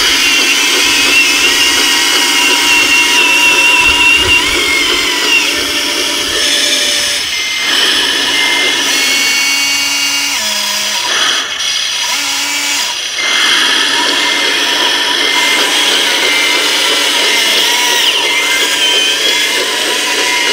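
Electric drive motors and gearboxes of a radio-controlled Liebherr LR 634 crawler loader whining as it works, the pitch shifting as it moves, with short breaks about a third and halfway through.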